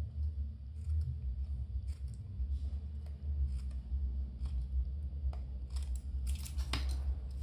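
Cardboard being cut to trim it for clearance, heard as scattered short snips and crunches with a denser run of cutting noises about six seconds in. A steady low rumble lies under it.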